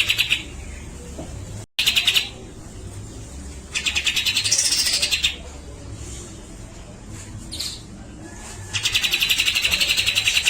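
Cucak jenggot (a bulbul) singing: repeated loud bursts of very fast rattling notes, each lasting about a second or more. The one about four seconds in carries a higher note that rises and falls over the rattle.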